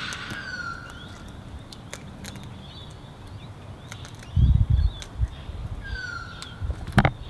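Sulphur-crested cockatoo cracking sunflower seeds in its beak: scattered sharp clicks. A bird's clear falling whistle sounds twice, near the start and about six seconds in. A few dull low thumps come about four and a half seconds in.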